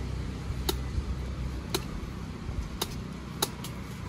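Low steady rumble of road traffic, with four sharp clicks about a second apart.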